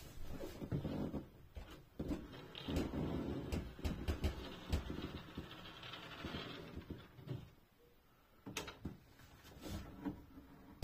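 Rustling and scraping of hands and a board being handled inside a wooden cabinet, with a few scattered light knocks.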